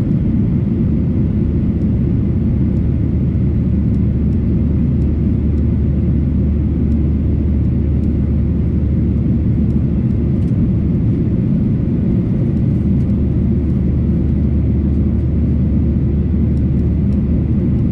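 Cabin noise of a Boeing 737-800 in its climb after take-off: a steady low roar of its CFM56-7B turbofan engines and the airflow over the fuselage, heard from inside the cabin at a window seat.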